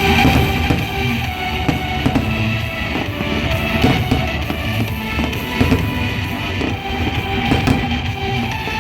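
Loud rock music with a drum kit and guitar.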